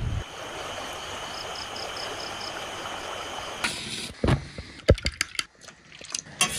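A steady hiss with a faint, high ticking at about four a second. About four seconds in, a safety match is struck and flares, followed by sharp clicks and clinks of a spoon and bowl.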